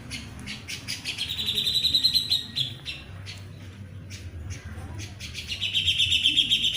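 A bird chirping in fast, high trills: one run of rapid chirps about a second in and another, the loudest, near the end, with scattered single chirps between.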